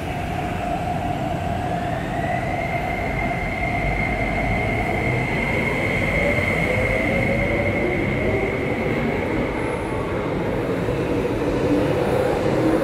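MTR Tuen Mun Line IKK-train (SP1900 EMU) running past along the platform: a rumble of wheels and body with its traction motors whining. A high whine rises about two seconds in and holds steady until about ten seconds in, over a lower tone that slowly shifts in pitch.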